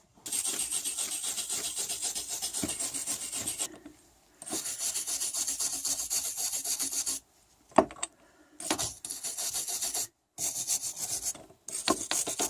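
Stainless steel wire brush scrubbed by hand over metal parts in quick back-and-forth strokes, taking dull oxidation off before soldering. The scrubbing comes in several runs with short pauses between them, and there is one sharp click a little before eight seconds in.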